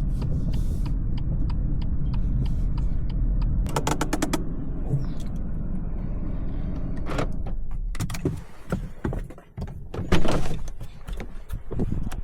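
BMW 220i's B48 turbocharged four-cylinder running low and steady, with light clicking over it and a quick run of clicks about four seconds in. After about eight seconds the engine sound drops away and a few irregular clunks and knocks follow, the loudest about ten seconds in.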